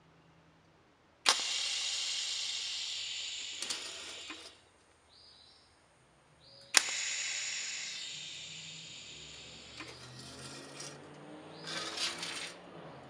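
TIG welding arc joining the steel spoon pieces of a metal sculpture: two welds, each starting with a sharp crack as the arc strikes and then running as a steady hiss for about three seconds, with a short quiet pause between them.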